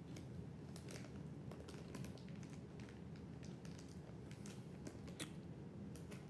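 Crunchy Combos cheese-filled snack being chewed: faint, irregular clicks and crackles, several a second.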